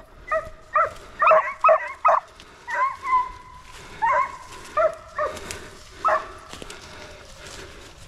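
Deer hounds baying on a trail: a string of about a dozen short bays, with two longer drawn-out bawls about three and six seconds in.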